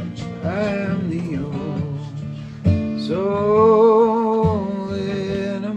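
Acoustic guitar strummed, with a voice singing slow drawn-out notes; about three seconds in a new chord is struck and the voice holds one long wavering note.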